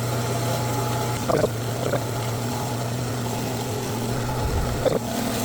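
Old metal-cutting band saw running steadily, its motor humming while the blade cuts through exhaust tubing.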